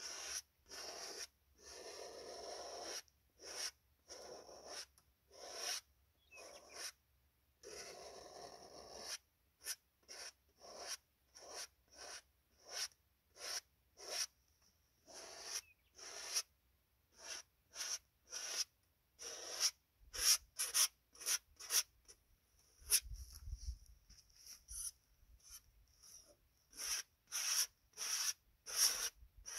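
Oil paint being worked onto a large canvas in quick repeated strokes: a dry rubbing swish about twice a second, with a few longer sweeps in the first several seconds.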